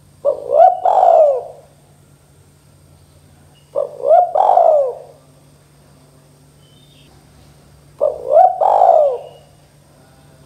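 Spotted dove cooing: three phrases about four seconds apart, each a short note followed by two longer arching notes.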